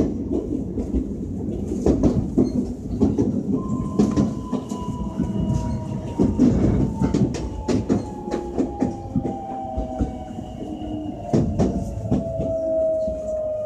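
Interior running sound of a JR West 225-5000 series electric train: wheels clicking over rail joints under a steady rumble. About three and a half seconds in, the traction motors' whine sets in and falls slowly and steadily in pitch as the train slows.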